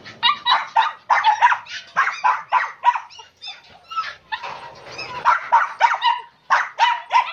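Dogs barking in quick, repeated high-pitched bursts, with a brief lull a little past the middle.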